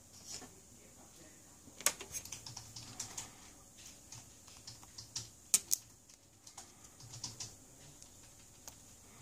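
Irregular light clicks and taps of fingers handling the flex cables and frame of an opened Huawei P20 lite smartphone, with one sharp click about two seconds in and two close together a little past the middle.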